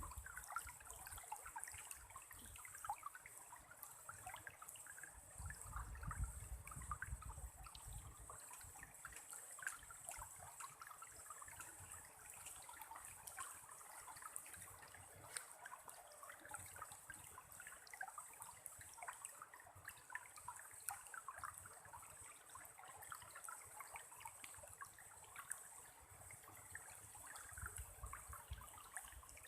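Faint, steady trickling like running water, with a low rumble about six to eight seconds in.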